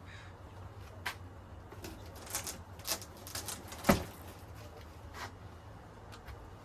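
A handful of short clicks and knocks, spaced irregularly and loudest about four seconds in, from hands and tools at work on a car during a radiator change, over a steady low hum.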